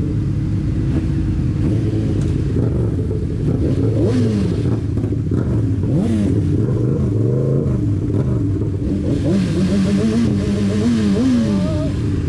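Car engines running with a steady drone, and engines revving in short rises and falls of pitch several times, most often near the end.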